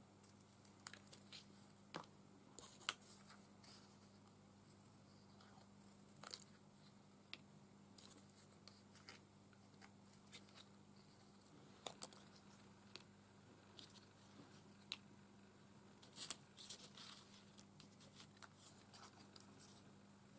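Faint, scattered paper rustles and light taps as cut-out paper leaves are handled and laid onto a card, over a low steady hum.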